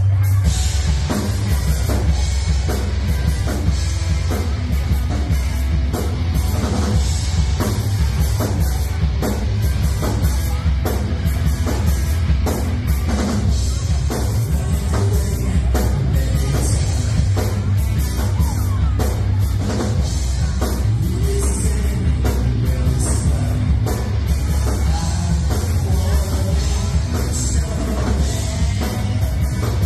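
Rock band playing live: two electric guitars, electric bass and drum kit, with a steady, driving drum beat and a heavy low end.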